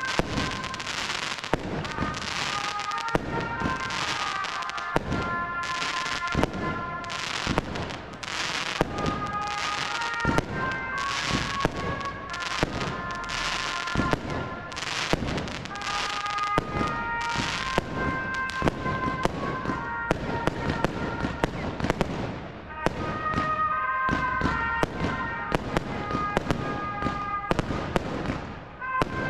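Aerial firework shells bursting in quick succession, a dense run of bangs and crackles, with brief lulls about two-thirds through and near the end. Music plays from the village public-address loudspeakers underneath.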